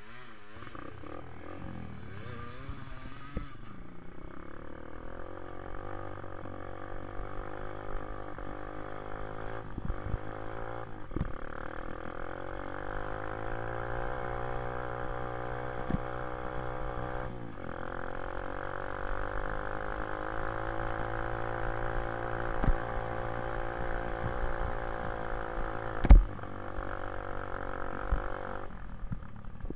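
Dirt bike engine under way at speed, its note rising and falling with throttle and gear changes. Short knocks come through now and then, the loudest a sharp thump near the end.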